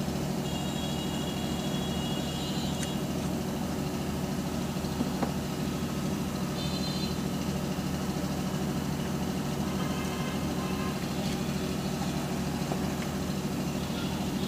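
Steady low mechanical hum, like an idling engine, with a few faint high-pitched tones over it now and then.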